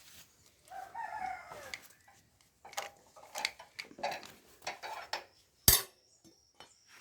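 A rooster crows once, about a second in. Then come short metallic clinks and knocks of tools and parts being handled, with one sharp clank a little before the end.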